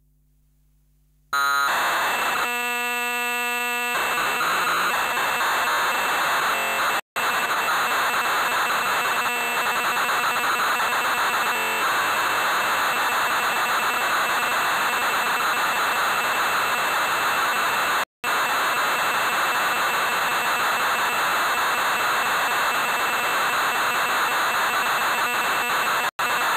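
Raw binary data played back from a Compact Cassette, a bare bit stream with a sync bit every 8 bits and no error correction. It cuts in about a second in as a buzzy stretch of steady tones, then turns into a loud, dense hissing screech of data, broken by three very short dropouts.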